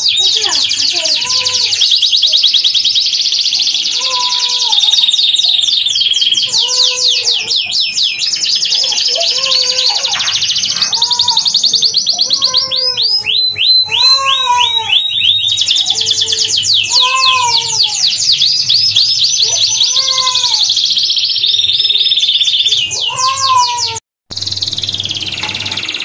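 Domestic canary singing a long, fast song of rapid high trills and rolls, almost without pause. A lower, rising-and-falling call repeats every second or two beneath it, and the sound cuts out for a moment near the end.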